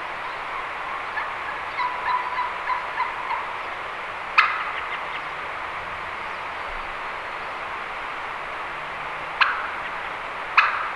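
Turkey yelping: a run of about six evenly spaced yelps a couple of seconds in. Three short, sharp calls follow, at about 4, 9 and 10.5 seconds.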